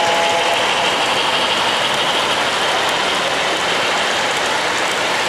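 O-gauge model passenger train rolling past close by on three-rail track, its wheels making a steady rushing rattle.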